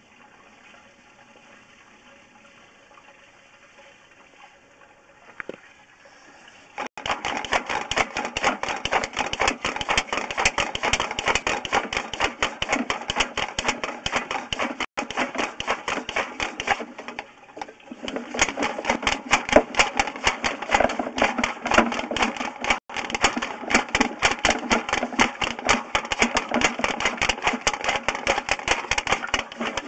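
Faint hiss of water running in the line, then about seven seconds in a fast, continuous rattling clatter starts, with a few brief breaks, as the sewer inspection camera's push cable is fed down the pipe.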